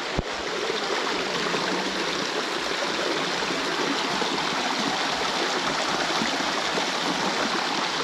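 River water rushing steadily over rocks, an even, continuous wash of flowing water.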